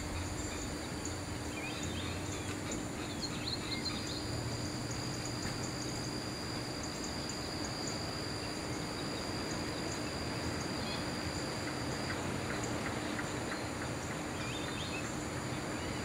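Wetland ambience: insects buzz steadily, one holding a thin high tone from about four seconds in until past the middle, while small birds chirp faintly now and then, over a low steady hum.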